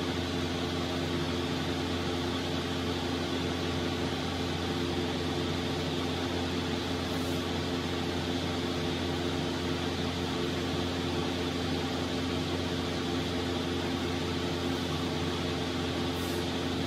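A steady machine hum with several low held tones over an even hiss, unchanging throughout.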